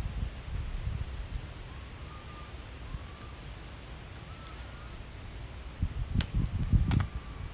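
Wind rumbling on the microphone in gusts, with a faint steady high-pitched hum and a few faint short chirps. Near the end two sharp clicks come amid a louder gust.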